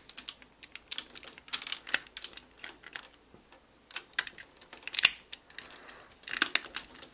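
Plastic parts of a Deluxe Blizzard Force Megazord toy clicking and tapping as it is handled, with the shield and sword being fitted. Irregular small clicks, the sharpest about five seconds in and a quick cluster near the end.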